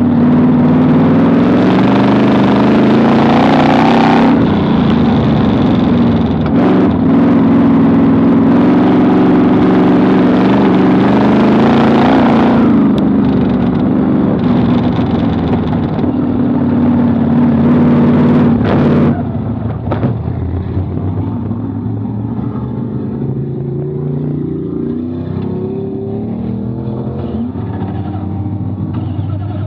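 Vintage modified dirt-track race car's engine at speed, heard from inside the open cockpit, its pitch rising and falling as the throttle is worked through the turns. About 19 seconds in the engine drops to a lower, quieter, steadier note.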